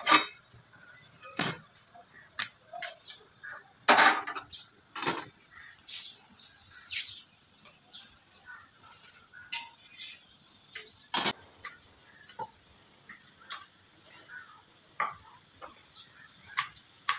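Scattered sharp clinks and knocks of kitchen utensils: metal tongs against an iron tawa and a wooden rolling pin on a rolling board, a few of them loud.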